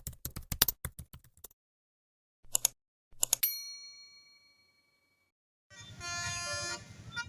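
Rapid clicks like typing, then two short knocks and a bell-like ding that rings out for about two seconds. Near the end, a multi-tone telolet bus horn starts playing a tune over engine rumble.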